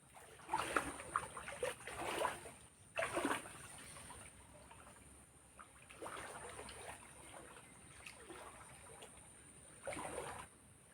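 Water splashing and dribbling in several short, irregular bursts, the longest about two seconds.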